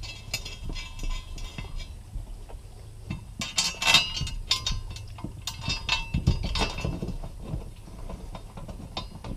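Light metallic clicks and clinks as a factory seat bolt is dropped into a metal seat-bracket adapter and threaded in by hand, with louder clanks about four seconds in and again around six to seven seconds in.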